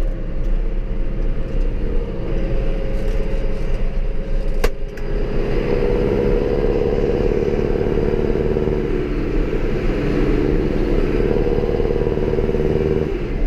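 Tractor diesel engine roaring steadily in the cab while pulling loaded grain trailers at low speed, its note growing stronger about five seconds in. One sharp click sounds just before that.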